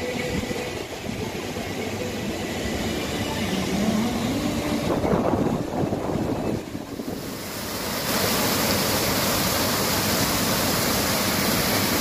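Waterfall rushing: a steady, loud hiss of falling water. About eight seconds in the rush turns brighter and more even as a small cascade over boulders takes over.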